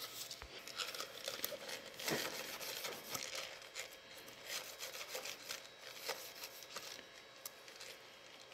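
Small brush scrubbing parts of a hybrid-battery cooling blower, a run of irregular scratching and rubbing strokes.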